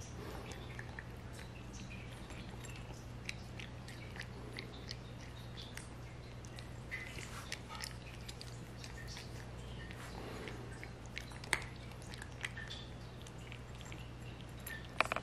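A cat crunching dry kibble: irregular crisp crunches and clicks, with a sharper cluster of clicks near the end.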